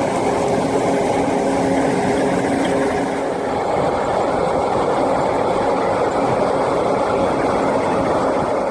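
A heavy snow-clearing machine's engine running steadily, with a dense, even rushing noise over it.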